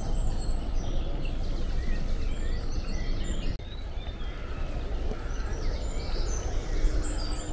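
Outdoor countryside ambience: many small birds chirping and calling over a steady background noise. The background drops abruptly about halfway through.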